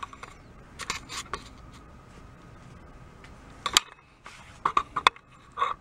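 Scattered light clicks and knocks of a small metal drum key and tools being handled and positioned at a bench grinder, in a few short clusters; the grinder is not running.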